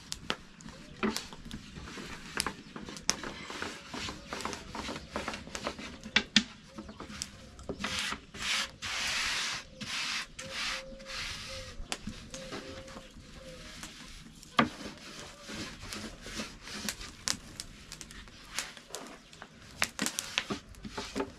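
Dough being rolled out thin with a wooden rolling pin on a board: repeated rubbing strokes with light wooden clicks and knocks, and a stretch of louder hissing rubbing about eight seconds in.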